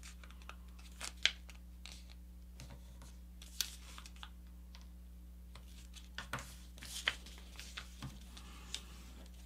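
A sheet of paper being folded and creased by hand: soft rustles and a few short crinkles, the loudest just over a second in and several more around six to seven seconds, over a faint steady hum.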